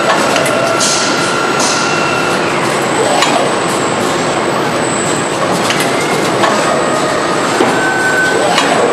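Automated factory machinery running: a continuous loud clatter and hiss, with a couple of sharp knocks.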